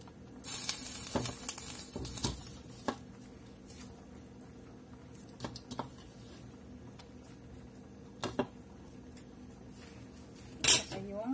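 Kitchen handling sounds at a stovetop pot of moringa leaves. A rustling, hissing burst lasts for the first two or three seconds, then a faint steady hum runs on with a few light clicks, and a sharp clack comes near the end.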